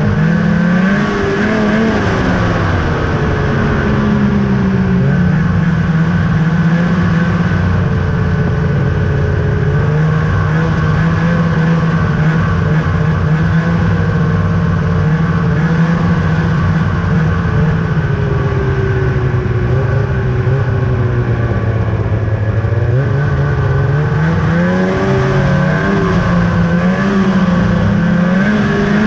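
2000 Ski-Doo Summit 800's two-stroke twin engine running under throttle on the trail, its pitch easing and rising with the throttle: it drops lower a little past the middle, then climbs again near the end.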